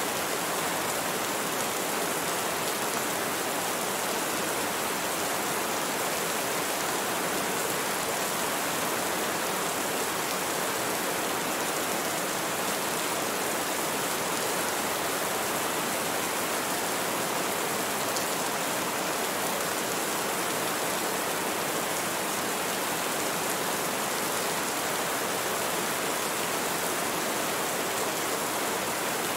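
Rain falling steadily, an even hiss that holds level throughout.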